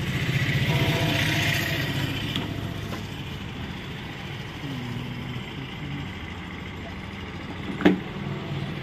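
Canon PIXMA G3770 inkjet printer's mechanism running, louder for the first two seconds and then lower and steady. A single sharp knock comes near the end.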